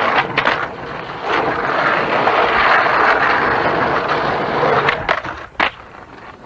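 Skateboard wheels rolling on smooth concrete, a steady grinding rumble, broken by sharp clacks of the board: a few near the start and a cluster about five seconds in. After that cluster the rolling sound drops away.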